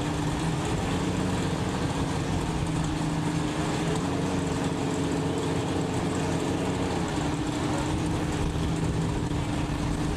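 Toyota 2JZ inline-six drag car engines idling steadily at the starting line, with a slight change in idle pitch about seven seconds in.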